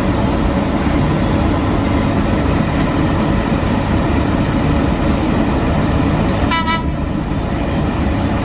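Heavy road-construction machinery running with a steady, loud diesel rumble, and one short horn toot about six and a half seconds in.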